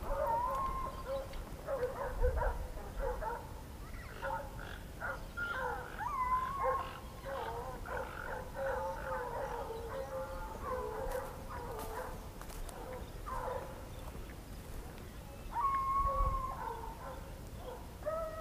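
A pack of boar-hunting dogs barking and howling, several voices overlapping, with a few drawn-out howls among the shorter barks.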